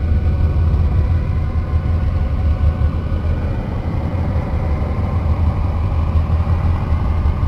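Space sonification presented as the 'sound' of Uranus's moon Miranda: a steady, deep droning rumble with faint, steady higher tones above it.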